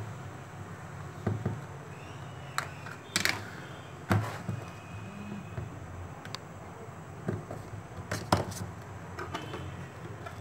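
Sharp plastic clicks and knocks as a Samsung Galaxy J2 (2016) phone is opened by hand: the snap-on back cover is unclipped and the battery lifted out, and the parts are set down on the bench. About ten scattered clicks over a low steady hum.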